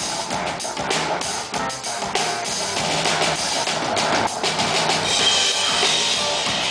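Live rock band playing, the drum kit's kick and snare to the fore over electric bass guitar, with a bright high wash building near the end.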